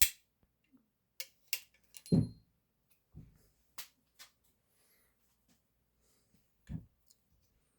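Sharp metallic clicks and a couple of duller knocks from handling a Heritage Rough Rider .22 revolver and its parts while it is taken apart to get at the mainspring. The sounds are separate and irregular, not a steady rhythm.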